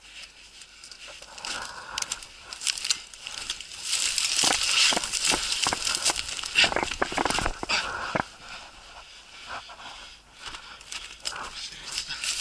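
Footsteps crunching through snow and dry grass, with dry stems crackling and brushing against clothing, densest and loudest for a few seconds in the middle.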